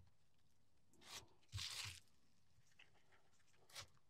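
Mostly near silence with a few faint, short rustles and scuffs from gloved hands seasoning a raw tri-tip with a shaker of coarse rub. The longest rustle comes about a second and a half in.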